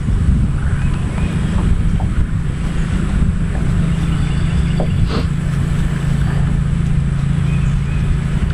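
A motor running at a steady low hum, with wind rumbling on the microphone.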